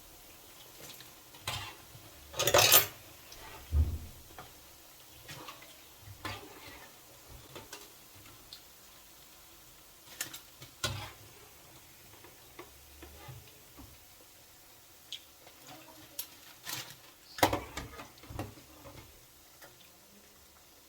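A cooking utensil clinking and scraping against a pan as akara bean cakes are turned in frying oil, with scattered knocks over a faint sizzle. The loudest scrapes come about two and a half seconds in and again near the end.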